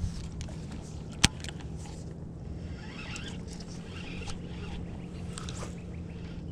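Steady low hum of a boat's bow-mounted electric trolling motor, with one sharp click about a second in.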